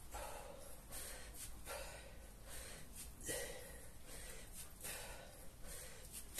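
A man breathing hard from the exertion of a long set of kettlebell swings: heavy, noisy breaths about every second and a half.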